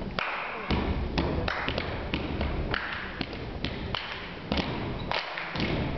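Performers' feet stomping on a wooden stage floor in a body-percussion routine: a string of sharp thuds and taps, roughly two a second, irregularly spaced, with no backing music.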